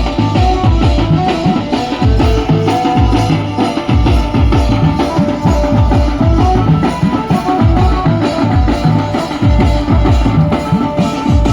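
Adivasi wedding band (band baja) playing: loud, fast, dense drumming under a melody of held notes.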